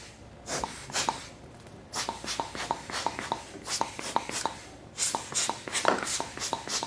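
HEPA Jet II blower's PVC bulb squeezed again and again, puffing short blasts of air into a zoom lens's extended barrel to clear dust. Each puff is a brief hiss with a light click, about three a second, with short pauses between runs.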